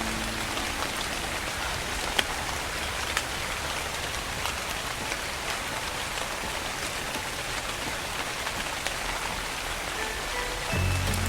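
Steady rain falling on a surface: a dense even patter with scattered sharper drop ticks, the clearest about two seconds in. Low, soft music notes come in near the end.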